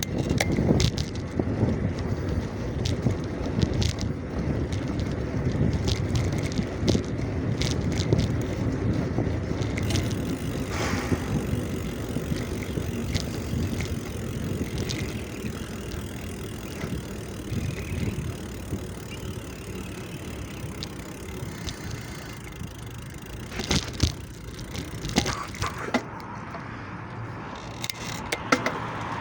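Bicycle being ridden: steady road and wind rumble with scattered clicks and rattles from the bike, most frequent early on and again near the end.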